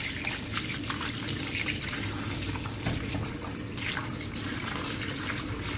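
Kitchen tap running into a plastic basin of salted milkfish pieces in a steel sink, with irregular splashing as a hand rubs and rinses the fish.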